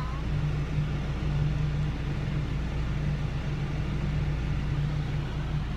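A car's steady low rumble heard from inside the cabin, an even drone with no breaks.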